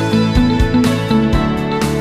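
Background music with a steady beat and plucked-string notes.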